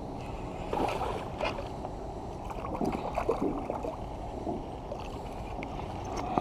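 Irregular water splashes and sloshing over a steady low rush: a bass hooked on a buzzbait thrashing at the surface as it is reeled in.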